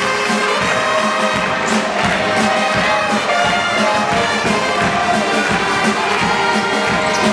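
Brass-led music playing loudly and steadily, with an arena crowd clapping along.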